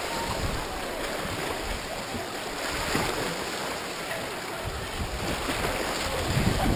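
Shallow, clear water lapping and splashing at close range, a steady hiss of moving water.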